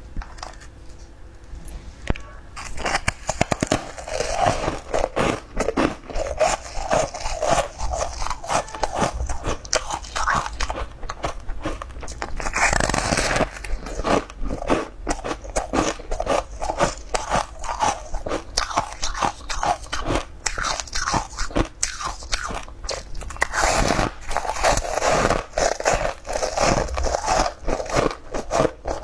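Close-miked biting and chewing of soft green leaf-shaped sponge cakes (leaf cakes), a steady run of bites and mouth noises that grows loud about two seconds in.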